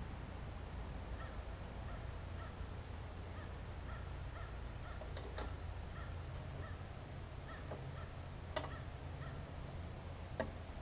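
A few sharp metallic clicks and taps from a hand wrench on a Briggs and Stratton Classic push-mower engine as the loose spark plug is seated, over a low steady hum.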